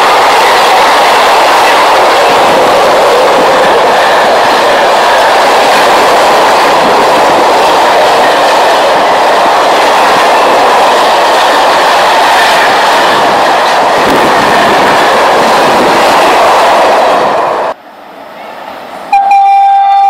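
Freight train of flat wagons loaded with vans passing close by at speed: a loud, steady rush of wheels on rails that cuts off suddenly near the end. About a second and a half later a loud, steady train horn sounds.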